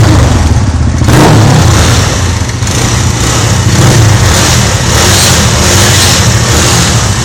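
Motorcycle engine through a loud aftermarket Two Way exhaust, being revved on command, with its revs rising and falling; it dips about two and a half seconds in and picks up again.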